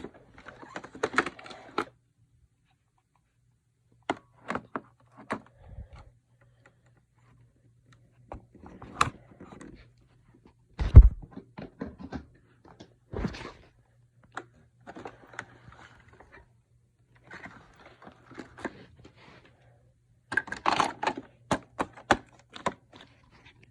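Irregular plastic clicks, taps and knocks from a Roomba robot vacuum being handled and taken apart for a battery change, with one heavy thunk about eleven seconds in and a quick run of clicks near the end.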